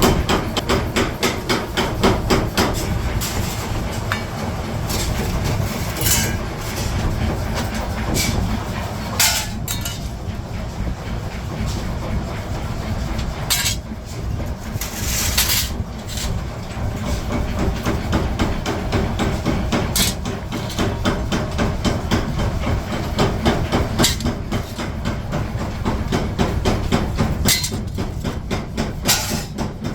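Forging-shop machinery running with a fast, steady mechanical pounding over a low rumble, and louder metallic strikes every few seconds.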